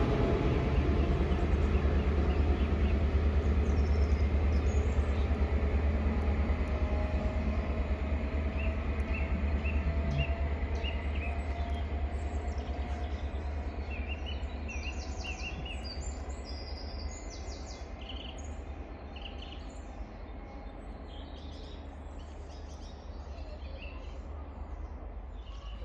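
A Class 43 HST departing, the sound of its diesel power cars fading steadily away over about twenty seconds. Birds chirp from about eight seconds in.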